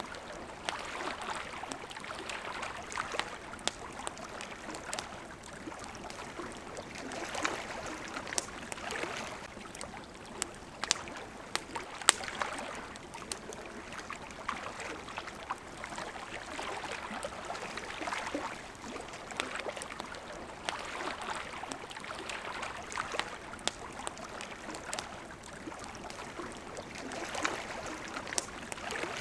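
Small waves lapping at the water's edge, swelling and easing every second or two, with a wood campfire crackling over them in scattered sharp pops, the loudest about twelve seconds in.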